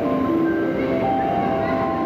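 A melody of held, chime-like notes stepping up and down in pitch, playing over the low rumble of an electric express train pulling into the platform.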